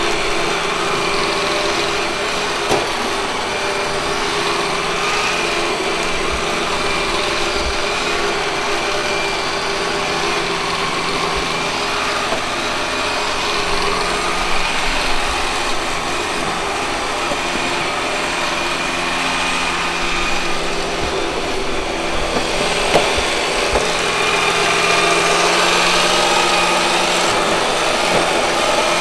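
Robot vacuum cleaner running: the steady whine and whir of its suction motor and brushes, with a few brief knocks along the way.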